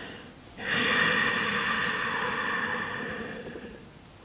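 A person's long audible exhale, starting sharply about half a second in and fading away over about three seconds, after a softer inhale at the start.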